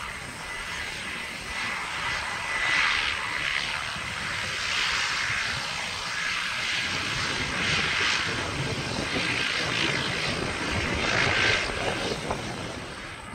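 Beechcraft B200 Super King Air's two Pratt & Whitney PT6A turboprop engines running: a steady rush with a high hiss that swells and eases several times.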